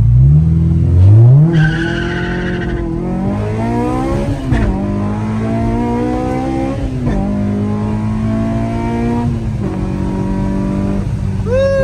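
Honda car engine pulling hard through the gears. Its pitch climbs, then drops back at upshifts about 4, 7 and 9.5 seconds in. A brief tire squeal comes about two seconds in.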